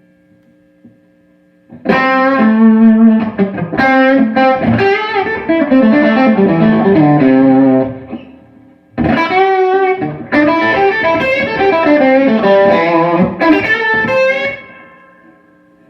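Electric guitar playing two fast lead phrases of many notes with falling runs, separated by a short pause about halfway through and fading out near the end. A faint steady hum sits in the quiet gaps.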